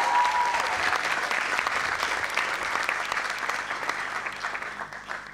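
Audience applauding in an auditorium, the clapping thinning out and dying down near the end.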